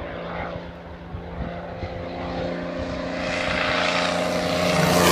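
XtremeAir Sbach 342 aerobatic plane's piston engine and propeller at full power, a steady buzzing drone growing louder as the plane approaches on a low, fast pass.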